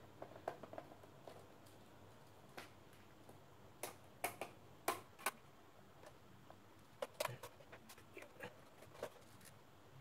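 Scattered light clicks and taps, irregular and faint, from hands handling a laptop's plastic bottom case and its screws.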